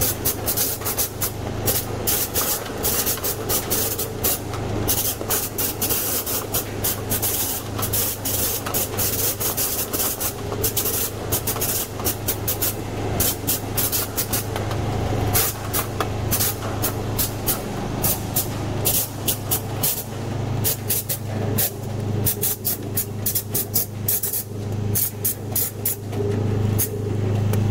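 Dried-apricot sorting machine running: a steady motor hum under a rapid, irregular stream of short sharp hisses and clicks, which thin out after about 20 seconds.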